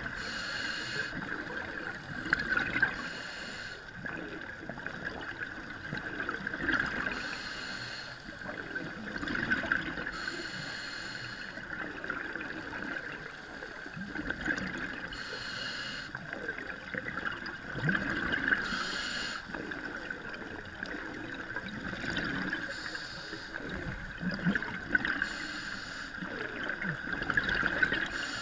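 Scuba regulator breathing underwater: a hissing breath every few seconds, uneven in spacing, with bubbling and gurgling between breaths.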